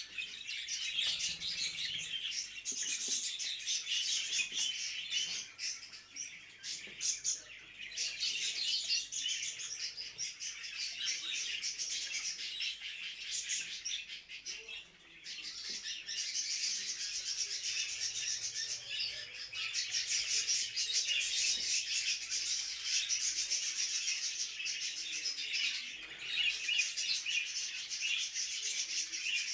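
Several budgerigars chattering and warbling: a dense, unbroken stream of high chirps and twitters, with two brief lulls, about a quarter and about half way through. It is the budgie chatter that breeders play to bring birds into breeding condition.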